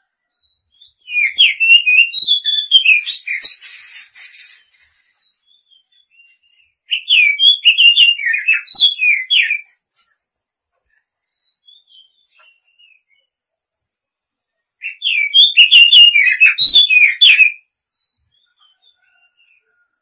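Oriental magpie-robin singing: three bursts of quick, varied whistled notes, each two to three seconds long, with pauses between them.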